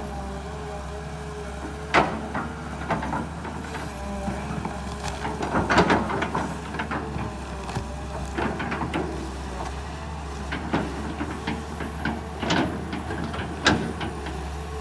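Kobelco SK200 excavator's engine running with a wavering hydraulic whine, and scattered sharp knocks and cracks as the bucket works at tree stumps, the loudest about six seconds in.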